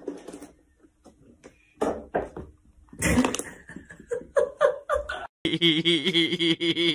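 A person laughing in short, irregular bursts, with a few sharp clicks. About five seconds in, this cuts off and a steady, wavering pitched sound begins.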